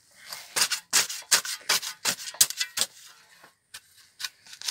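Metal spade digging into clumpy garden soil: a quick run of scraping, crunching strokes as earth is cut and turned over, thinning to a few scattered ticks of falling clods in the second half.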